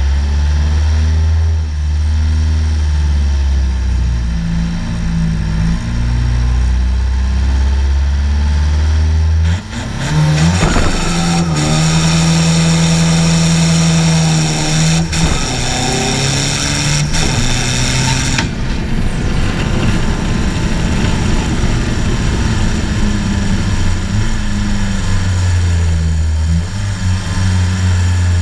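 Car engine idling with a steady low drone. About ten seconds in it revs up suddenly and holds a higher, loud note with strong hiss for about seven seconds, then drops back, running unevenly before settling to idle near the end.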